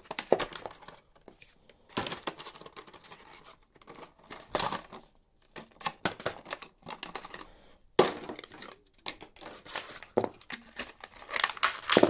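Cardboard backing of a toy blister pack being torn open and the clear plastic blister crinkling as it is pulled apart, in irregular bursts, the loudest a sudden sharp one about eight seconds in.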